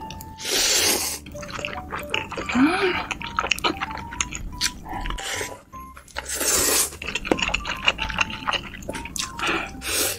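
Black bean sauce noodles being slurped in two long loud pulls, about half a second in and again about six seconds in, with wet chewing and mouth clicks between them. A soft melody plays in the background.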